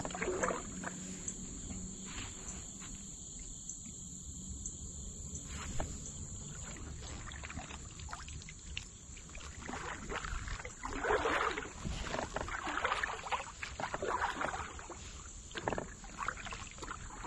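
Kayak paddle strokes in calm river water, the double-bladed paddle splashing and dripping as it dips on alternate sides at irregular intervals, sparse at first and coming closer together past the middle.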